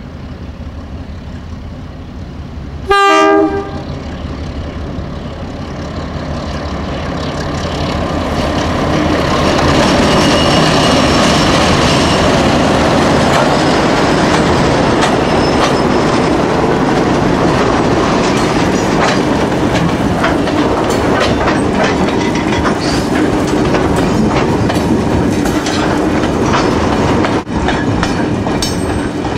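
NSW 48 class diesel locomotives, their Alco six-cylinder engines working, sound a short horn blast about three seconds in, then grow louder as they pass close by. The wagons behind roll past with a steady clickety-clack of wheels over the rail joints.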